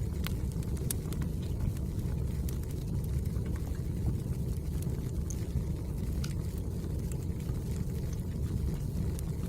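Firewood burning with a steady low rumble of flames and scattered sharp crackles and pops.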